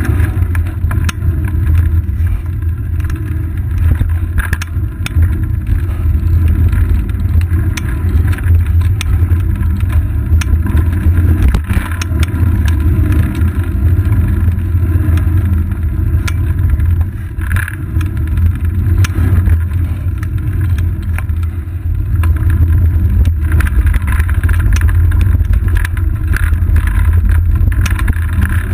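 Steady low rumble of wind and road vibration picked up by a seat-post-mounted action camera on a moving bicycle, with scattered small knocks and rattles throughout.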